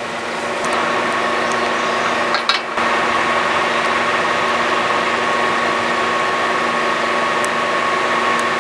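Steady hum of an idling vehicle, a little louder from about a second in, with a few faint clicks over it.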